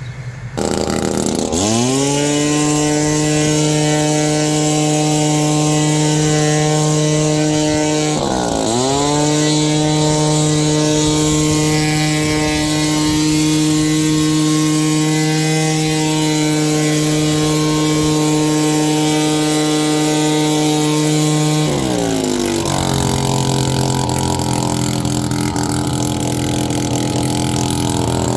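Gas leaf blower engine starting up and running at high throttle, dipping briefly and recovering about a third of the way through, then dropping to a lower idle about three-quarters of the way through.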